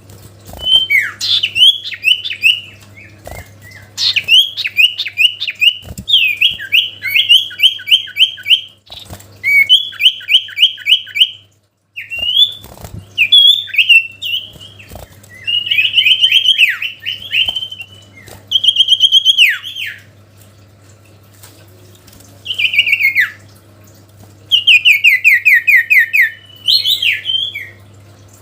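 Common iora (cipow) calling in loud bursts of rapid chattering trills and short rising notes, each burst a second or two long with short pauses between, over a steady low hum.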